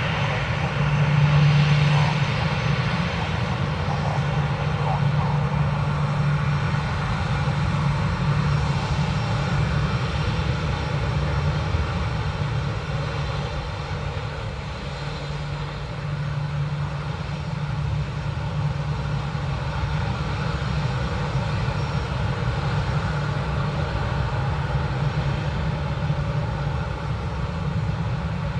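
An Airbus A319-112's twin CFM56 turbofan engines running at low taxi power as the airliner taxis and lines up, before the takeoff run. It is a steady engine drone with a low hum and no rise in thrust.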